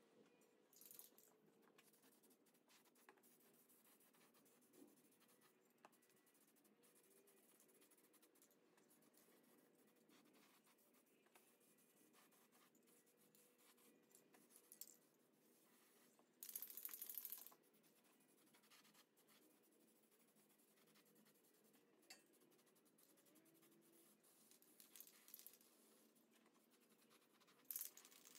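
Aerosol spray paint can spraying in short hissing bursts over a steel angle-iron frame, the longest burst about a second long just past the middle and a brief one near the end, with very quiet stretches between.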